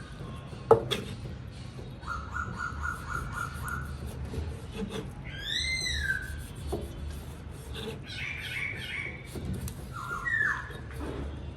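Birds calling: twice a single arching call that rises and falls, in between a quick trill of repeated notes, and more short chirps near the end. A sharp knock about a second in is the loudest single sound.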